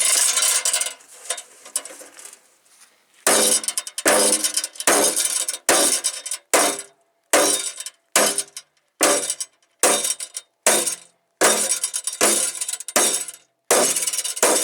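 Sledgehammer blows on a polished stainless steel truck fender, beating out a dent. After a short clatter and a pause, a steady run of sharp metallic clangs with short ringing tails starts about three seconds in, a little more than one blow a second.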